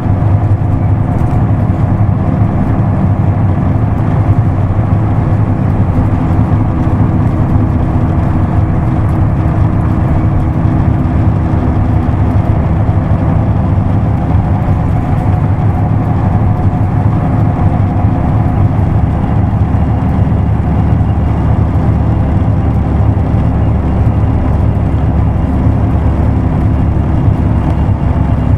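Isuzu Erga Mio route bus's inline-six diesel engine running steadily, heard from inside the bus, with no marked rise or fall in pitch.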